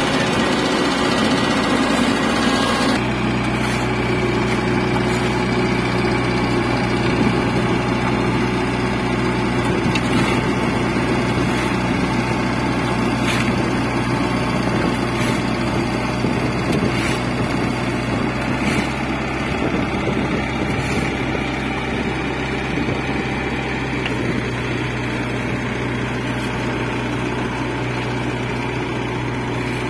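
Hanta F1740C mini asphalt paver's engine running steadily while it paves, with a few faint clicks. The sound shifts abruptly about three seconds in.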